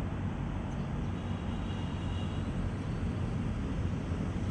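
Caterpillar excavator's diesel engine running steadily, a dense low rumble heard from inside the cab. A faint high whine comes in for about a second near the middle.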